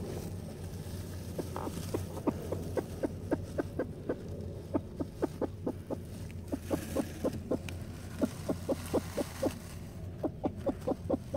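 Broody bantam hen clucking on the nest, short clucks about four a second in several runs with brief breaks, as a hand reaches under her and moves her egg: a broody hen protesting at being disturbed.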